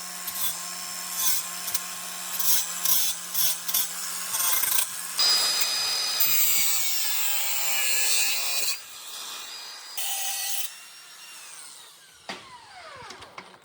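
A power grinder running with a steady hum and bearing repeatedly on metal in short scraping passes, most likely cutting back the chainsaw's bumper spikes. Near the end it is switched off and winds down with a falling whine.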